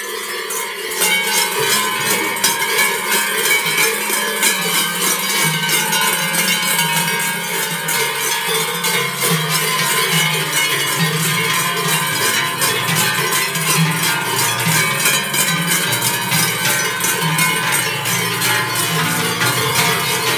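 Silvesterchläuse ringing their large cowbells and round body bells together, a continuous dense clanging kept up by the group as they sway and step in a circle.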